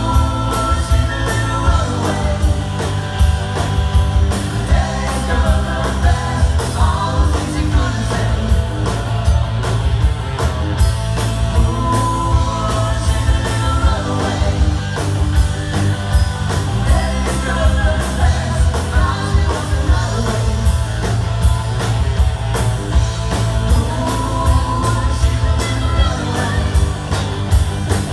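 A rock band playing live with a singer, full band with a steady drum beat and heavy bass.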